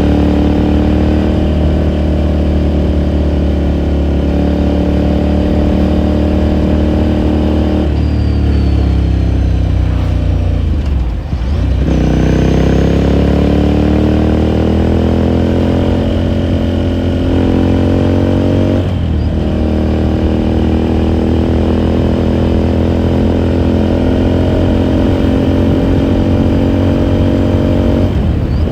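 2018 Ducati Scrambler Sixty2's air-cooled L-twin engine heard from the rider's seat while riding. It runs steadily, then the engine note falls away about eight seconds in. It picks up and rises again from about twelve seconds, steps down in pitch at a gear change near nineteen seconds and settles into steady cruising.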